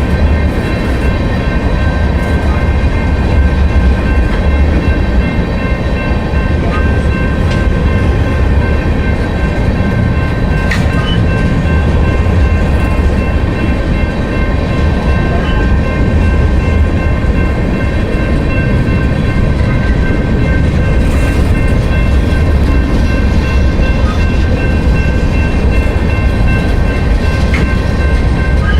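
Train cars rolling past on the rails: a loud, steady low rumble with a constant high whine over it that does not change.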